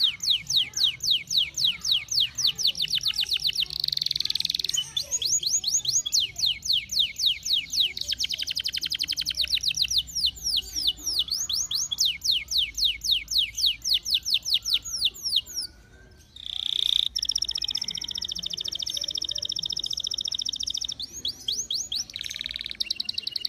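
Domestic canary singing a long, continuous song of fast trills, rapid repeated downward-sweeping notes about ten a second. About sixteen seconds in there is a brief pause, then a faster, steadier rolling trill.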